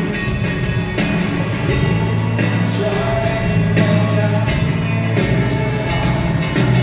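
Live band playing through a PA: a man singing over electric guitar, bass guitar, drums and keyboard.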